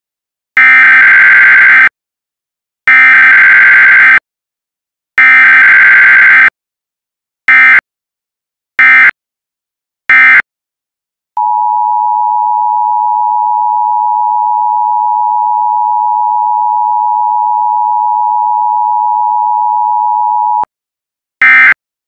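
Emergency Alert System alert tones for a tsunami warning: three loud, buzzing digital data bursts of the SAME header, then three shorter bursts, followed about eleven seconds in by the steady two-tone EAS attention signal, held for about nine seconds before cutting off. Two more short data bursts come near the end.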